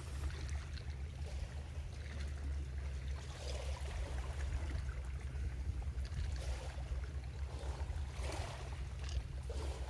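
Small sea waves washing and lapping on the shore, swelling and fading every second or two over a steady low rumble.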